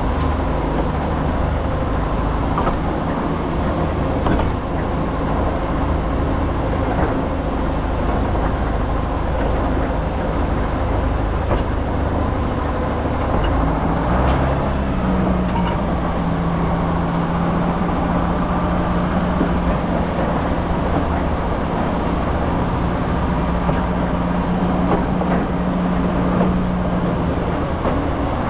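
Engine of a TU6P narrow-gauge diesel locomotive running steadily; about halfway through, the engine speed rises and holds at the higher note.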